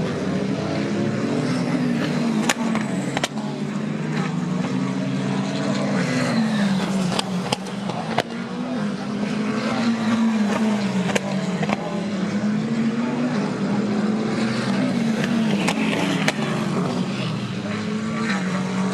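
GT race car engines running hard, the note rising and dropping again and again as the cars shift gears and brake, with a few sharp cracks.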